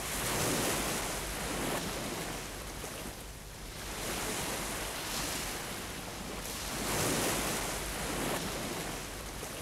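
Sea waves washing: a steady rushing hiss with a low rumble underneath, swelling and fading several times.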